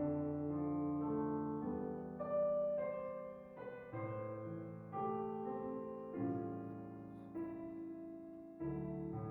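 Soft, slow piano background music: sustained chords changing about once a second.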